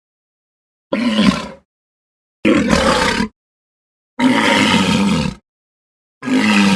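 Dinosaur roar sound effects: four separate growling roars, each about a second long, with dead silence between them.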